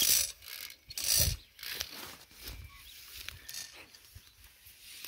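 Hand-pumped orchard sprayer at work, with a brass piston pump, hose and bamboo spray lance: irregular bursts of hiss mixed with mechanical rattling, several in the first two seconds and weaker ones after.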